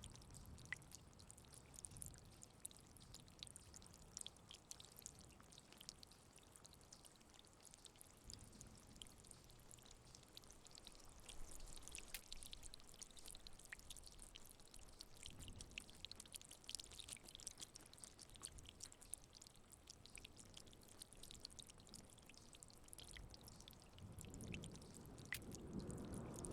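Faint rain, steady hiss with many small drop ticks and drips. A few soft low rumbles come and go, and one builds in the last two seconds.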